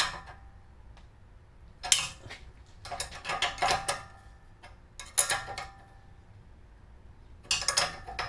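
Metal wrench clinking and ratcheting on the nuts of an exhaust flange's spring bolts in about five short bursts, with a ringing of steel, as the nuts are snugged down.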